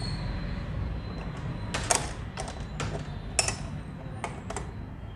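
Metal clicks and taps of a screwdriver and parts against an old sewing machine's metal head as a bar is fitted and its screw set: about eight sharp, irregular clicks over a low steady hum.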